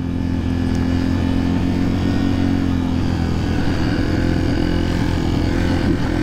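Yamaha TT-R230 dirt bike's single-cylinder four-stroke engine running steadily as it rides along a dirt trail, its pitch wavering slightly. Heard from a microphone inside the rider's helmet.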